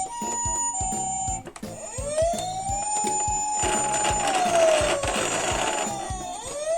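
Toy emergency-vehicle sirens. First comes the Japanese ambulance's two-tone 'pee-po' siren, alternating high and low about once every two-thirds of a second, which stops about a second and a half in. Then a wailing siren rises in pitch, holds, and slowly falls, with a harsh rasp in the middle, and starts rising again near the end. A steady beat runs underneath.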